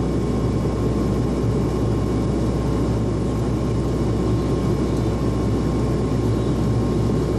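Steady drone of a Buddha Air turboprop airliner's engines and propellers in flight, with a thin, even tone running through it.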